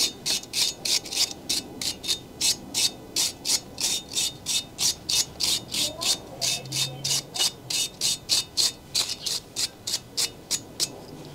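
Handheld wire brush scrubbing back and forth across the face of a wheel spacer, in quick, even scraping strokes, about three or four a second, stopping shortly before the end. The brushing cleans the mounting surface before the wheel goes on.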